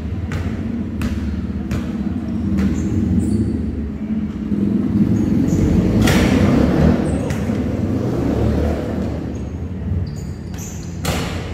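A basketball bounces a few times in the first seconds, strikes the hoop about six seconds in, and bounces hard again near the end. Under the bounces runs a loud low rumble that swells through the middle and then eases.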